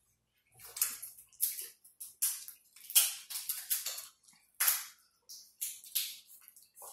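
Crab leg shells cracking and snapping as they are broken apart by hand. An irregular run of sharp, crunchy crackles starts about half a second in.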